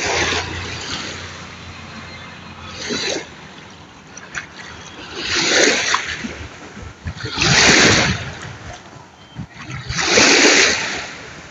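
Sea waves breaking and washing in with splashes, five surges coming one after another every two to three seconds.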